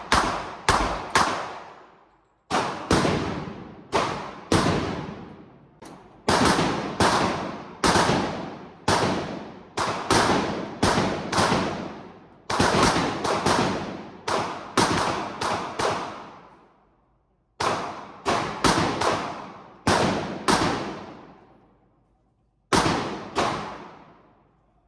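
Gunshots at a shooting range, fired at irregular intervals, sometimes in quick runs of two or three, each shot followed by an echoing decay. There are brief pauses about two-thirds of the way through and near the end.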